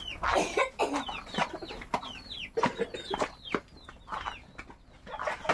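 Chickens calling: a string of short, high peeps that fall in pitch, several a second, with a few scattered knocks among them.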